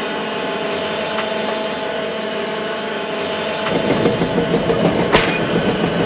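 Seine boat's deck machinery running with a steady hum; about three and a half seconds in it changes to the louder rattling rumble of the hydraulic power block hauling gear, with one sharp metallic clank about five seconds in.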